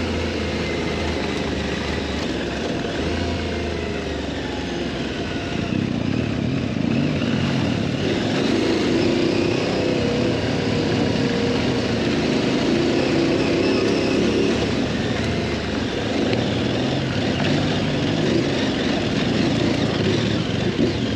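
Adventure motorcycle's twin-cylinder engine running on the move over an off-road trail, pulling harder and louder from about six seconds in.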